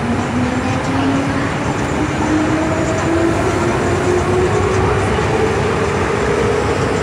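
MTR M-train electric multiple unit heard from inside the car as it accelerates out of an underground station: the traction motors whine in a pitch that rises steadily throughout, over a constant loud rumble of wheels and running noise.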